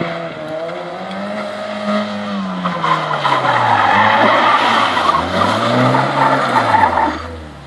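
Small hatchback rally car driven hard around a tight turn on loose gravel. The engine revs rise and fall twice, with tyres sliding and scrabbling on the dirt, and the sound fades away near the end.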